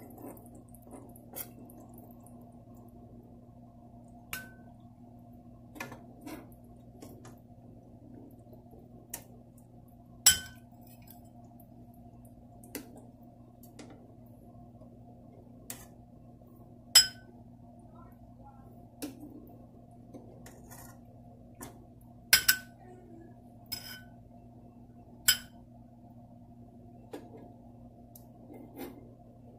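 A spoon clinking against a glass bowl as freshly cooked rasgullas are lifted out of their syrup and set in the bowl: about a dozen sharp clinks at irregular intervals, some with a short glassy ring, over a faint steady hum.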